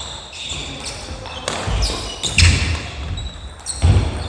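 Badminton singles rally on a wooden sports-hall floor: sneakers squeaking, racket strikes on the shuttlecock, and heavy footfalls. The loudest footfalls come about two and a half and four seconds in.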